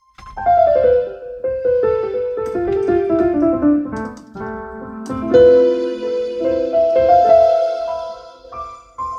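Yamaha portable keyboard played solo: a line of notes stepping downward over about four seconds, then a louder chord about five seconds in that is held and fades away near the end.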